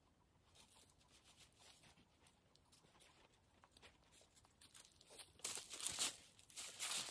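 Rustling and crinkling of material being handled, quiet at first and then louder in the last two seconds.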